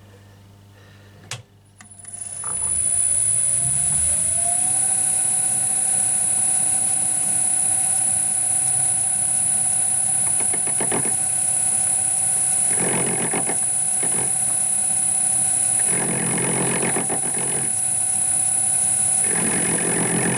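Metal lathe started about two seconds in, its motor spinning up with a rising pitch and then running steadily with a constant high whine. Several times a louder rasping cut joins in as the carbide tool takes intermittent cuts across the corners of 17 mm hex bar while turning a taper.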